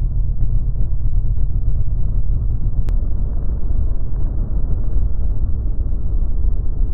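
Steady low wind and road rumble buffeting a motorcycle rider's camera microphone at highway speed, with one sharp click about three seconds in.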